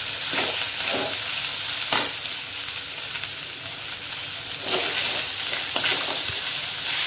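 Perforated metal spatula stirring cooked rice in a metal kadai. It scrapes and knocks against the pan every second or so, over a steady sizzle of hot oil as the rice is mixed into the turmeric tempering.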